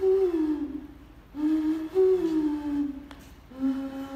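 Homemade tubular mouth-played instrument (a "wuwu") sounding a low, pitched tone in three phrases with short gaps. The first two phrases slide down in pitch, and the last holds steady.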